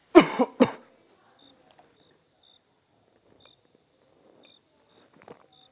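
A man gives two short, harsh vocal bursts, then faint, steady cricket chirping in the quiet that follows.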